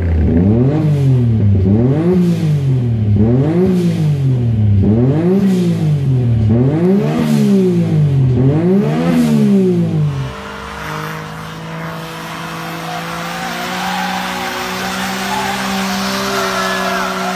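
Suzuki Cappuccino's turbocharged three-cylinder engine free-revved six times in quick succession, the revs climbing and dropping about every second and a half. About ten seconds in it switches to a car engine held at a steady high rev with tyre noise as it drives around an autocross course.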